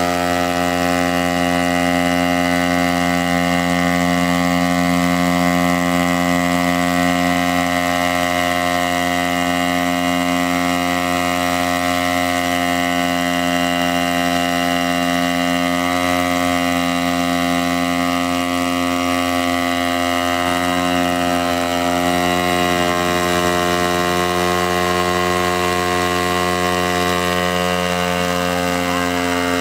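A 60 cc gasoline-engine hybrid multirotor in flight: the engine runs at a steady speed together with the whir of the propellers, its pitch shifting slightly now and then.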